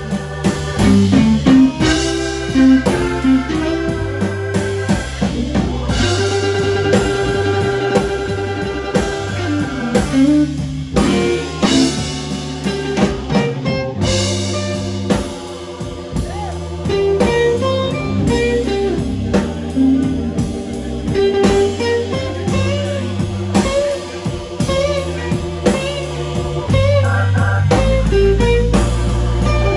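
Live blues band playing an instrumental stretch of a slow blues: lead electric guitar holds and bends notes over a drum kit and a steady low line.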